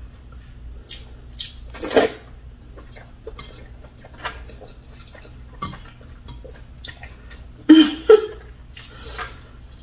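Eating by hand at a table: scattered light clicks and taps on bowls and Styrofoam take-out containers as food is scooped up, with chewing. There is a sharper knock about two seconds in, and a short two-part voiced sound, like a hum, near the end.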